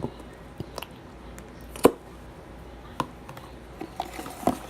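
Irregular taps and clicks of things being handled, about six in all, the loudest a little under two seconds in.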